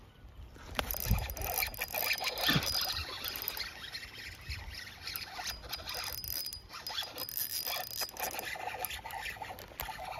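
Spinning reel being cranked to retrieve a frog lure: a dense, rasping, zipper-like run of fine clicks, starting about a second in. Two dull thumps come in the first three seconds.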